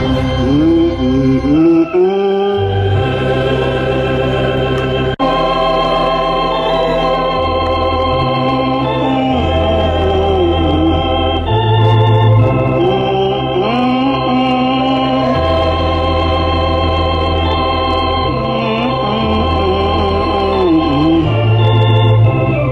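Electronic organ playing sustained chords over slowly changing bass notes, with a voice singing a slow, wavering melody over it.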